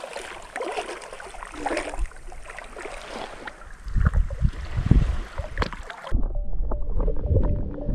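Splashing of someone wading into shallow seawater, then water lapping and sloshing close to the microphone with low thuds from wind or water buffeting it. Music comes in suddenly about six seconds in.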